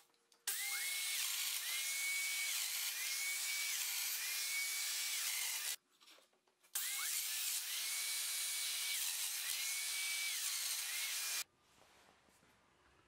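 Festool Domino joiner running in two bursts of about five seconds each, cutting mortises into the edge of a solid oak tabletop. Each burst has a steady motor hum with a whine that rises and levels off about four times, and the tool stops for about a second in between.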